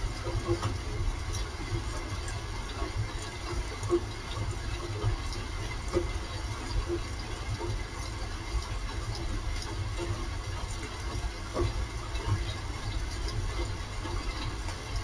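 Rain falling: a steady hiss with scattered short taps and a low rumble underneath.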